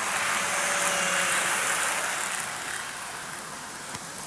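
N gauge model electric train (a 201-series model) running past on Unitrack, a rolling whir of wheels on the rails with a faint motor whine, swelling as it passes close and fading away. A small click near the end.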